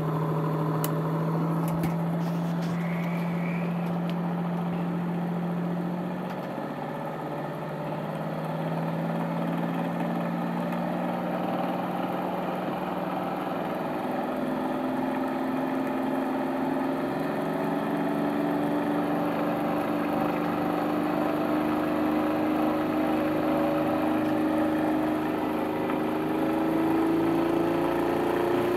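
Bedini-style pulse motor spinning an AC generator, a steady machine hum and whir. In the second half its pitch climbs slowly as the generator is brought up to speed.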